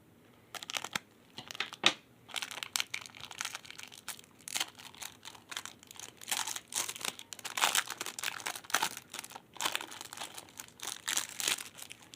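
A plastic wrapper around a stack of baseball cards being torn open and crinkled by hand, in irregular crackling bursts.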